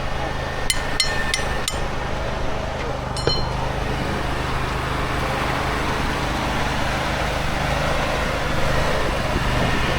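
An engine running steadily on a concrete job site, with four quick sharp metallic clinks in the first two seconds and one more a little after three seconds.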